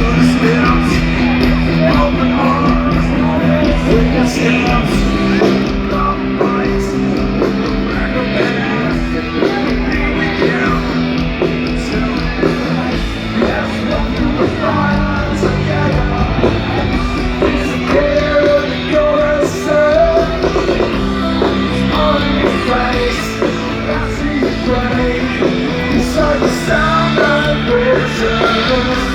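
A rock band playing live, with electric guitars and a singer's voice over them.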